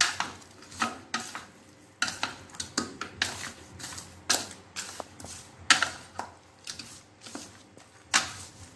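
Chopsticks stirring chopped chicken pieces in a stainless steel bowl, mixing in a marinade: irregular clinks and scrapes of the sticks against the metal bowl.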